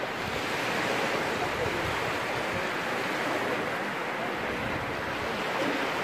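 Small surf waves breaking and washing up onto a sandy beach, a steady rushing wash of water.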